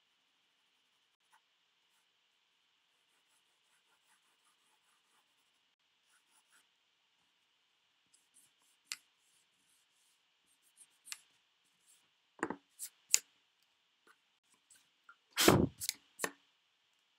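Pencil drawing on paper: short strokes, faint and sparse at first, then more frequent and louder in the second half, with the loudest scrapes about fifteen seconds in.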